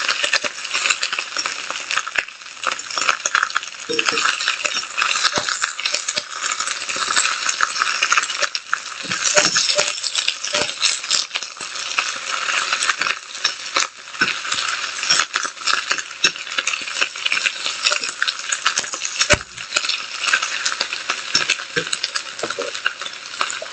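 Fresh spinach sizzling in hot olive oil in a pan while it is stirred and turned, the utensil giving irregular clicks and scrapes against the pan.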